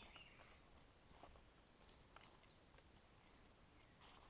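Near silence: faint outdoor ambience with a few soft, high bird chirps and scattered faint clicks.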